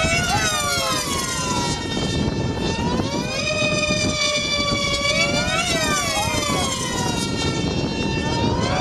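Two F3D pylon-racing model airplanes' small two-stroke glow engines screaming at very high revs. Their pitch sweeps up as they approach and falls as they pass, about a second in and again around six seconds, and rises again near the end.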